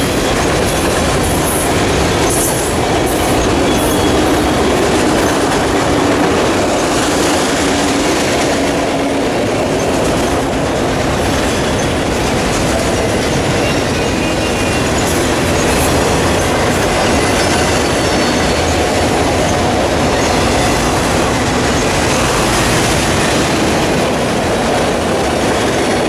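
Freight train of bi-level autorack cars rolling past close by: a steady rumble and clatter of steel wheels over the rail joints, with now and then a brief high wheel squeal.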